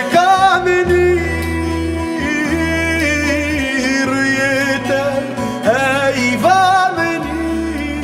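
Background music: a song with a sung melody of long, wavering held notes over plucked strings and sustained bass notes.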